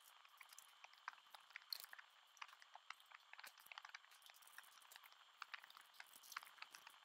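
Faint, irregular crinkling and clicking of small plastic zip bags of resin diamond-painting drills being handled over a plastic storage box.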